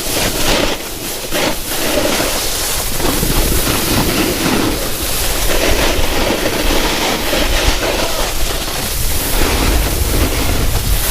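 Snowboard sliding and scraping over icy, wet snow during a run, swelling and easing every few seconds, with wind rumbling on the microphone.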